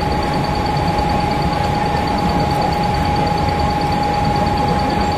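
Steady, loud railway-platform din: a continuous rumble with a constant high whine over it.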